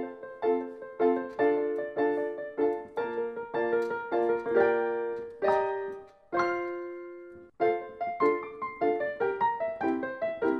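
Background piano music: a light run of notes, two or three a second, that pauses on a held chord about six seconds in, then picks up again.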